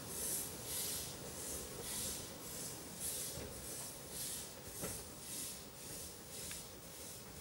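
Narrow-gauge steam locomotive No. 7, a Kerr Stuart 'Tattoo'-class 0-4-2 saddle tank, chuffing as it pulls a passenger train away, with about two exhaust beats a second that fade as it draws off.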